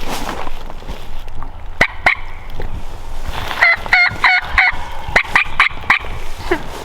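Turkey yelping: two quick runs of four notes each, a moment apart, near the middle. Two sharp clicks come just before them.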